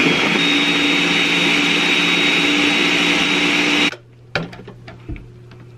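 Electric blender running at full speed, mixing a load of food. It stops abruptly about four seconds in, and a few faint knocks follow.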